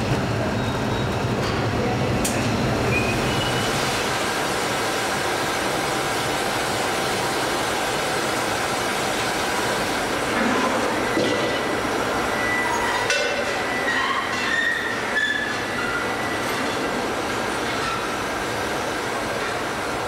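Steady industrial din of a glassworks shop floor, furnace and machinery noise, with a low hum that drops away about four seconds in. Around the middle come glass clinks and a few short high squealing tones.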